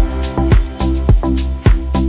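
Background music with a steady drum beat and a deep bass line that comes in at the start, about two kick hits a second.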